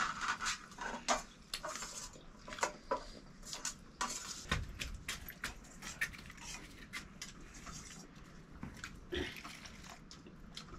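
Irregular clinks and scrapes of metal dishes and utensils, with a louder knock about four and a half seconds in.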